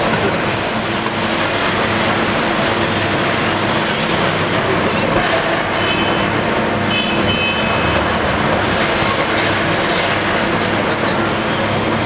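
Heavy diesel-hydraulic demolition excavators, a Hitachi long-front among them, running under load, with a constant crunching and rattling of concrete rubble being broken and falling. Two short high-pitched tones come about six and seven seconds in.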